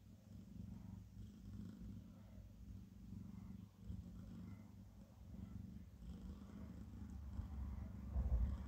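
Domestic cat purring, a low rumble that swells and dips with each breath. A louder low rumble comes in near the end.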